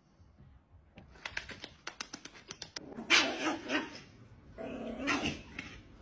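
A dog making two drawn-out calls with a wavering pitch, about a second each. They follow a quick run of sharp clicks.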